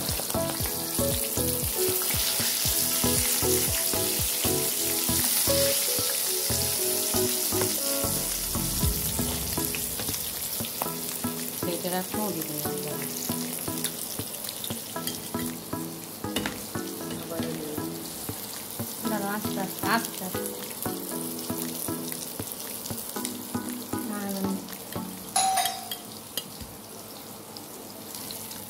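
Rohu fish steaks frying in hot oil in a pan: a steady sizzle, loudest in the first ten seconds or so and thinning out later, with a few sharp clicks as the pieces are turned with a metal spatula.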